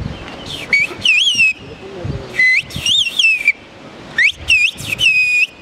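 A woman whistling kuş dili, the whistled form of Turkish, with her fingers in her mouth. It comes as three phrases of high whistles, each about a second long, whose pitch slides up and down.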